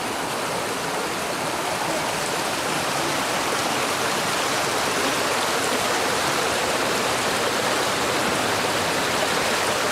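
Creek in flood, water rushing steadily.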